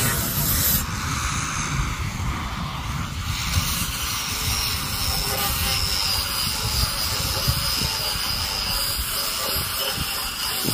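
Handheld electric sander running against the wooden boards of a frame, a steady motor whine over rough rubbing noise.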